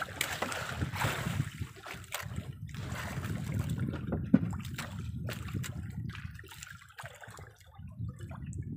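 Sea water lapping and sloshing against a small outrigger boat, with scattered light knocks and one sharper knock about four seconds in.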